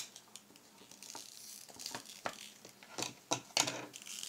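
Toy packaging crinkling and rustling as small wrapped parts are handled, with scattered small clicks and a few sharper crackles near the end.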